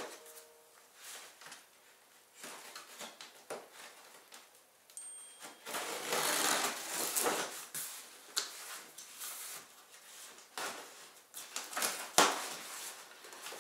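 Knife cutting open a large cardboard shipping box: irregular short scratching and scraping strokes, with a longer stretch of scraping about six seconds in and a sharp click near the end.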